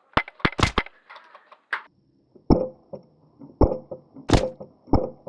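Airsoft gunfire: a quick run of four sharp cracks in the first second, then four single cracks spaced roughly a second apart.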